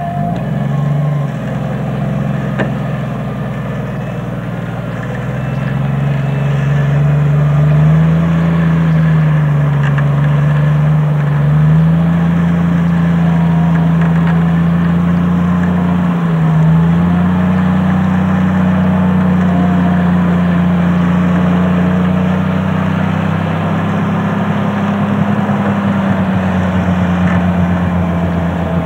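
Old open-top Jeep's engine running under heavy load as it works through deep mud, its revs wavering up and down at first and then held fairly steady, with a brief dip about two-thirds of the way in.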